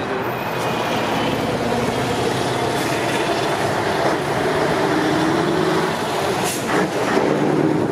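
Classic Scania V8 truck engines running steadily, with a short hiss about six and a half seconds in.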